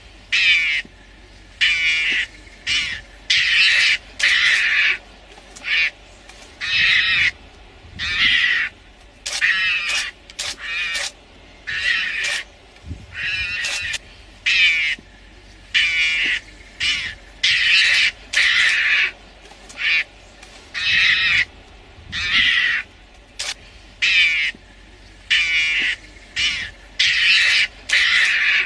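A mongoose cornered by lionesses giving repeated short, harsh calls, roughly one a second.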